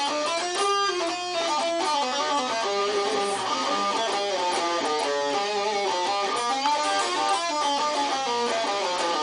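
Electric guitar playing flowing single-note melodic runs, the notes stepping up and down a few times a second: a Lydian flat-7 (Lydian dominant) line of the kind used over a dominant seventh chord in a blues progression.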